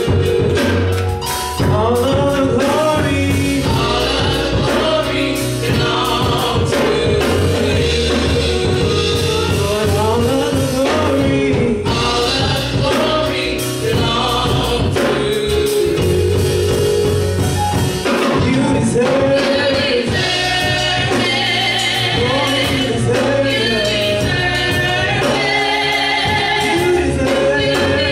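Gospel praise-and-worship song sung by a group of singers on microphones over an amplified accompaniment, with a deep bass line and a steady beat.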